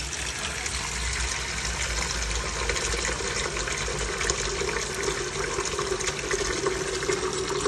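Tap water running steadily in a stream into a glass bowl that sits in a steel basin, splashing as the bowl fills.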